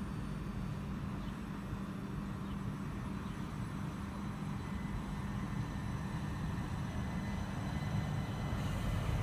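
Southern multiple-unit passenger train approaching slowly along the platform. It gives a steady low hum that grows gradually louder, and a hiss comes in near the end.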